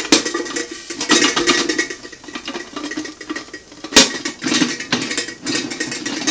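Popped popcorn tumbling and rattling out of a metal Whirly-Pop stovetop popper into an aluminium foil pan as a spoon scrapes it out, with small metallic clinks and one sharp knock about four seconds in.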